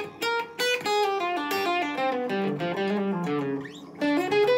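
Gibson ES-335 semi-hollow electric guitar playing a quick single-note blues lick with jazzy, deliberately 'wrong'-sounding notes that create tension before resolving. The line pauses briefly about three and a half seconds in, then picks up again.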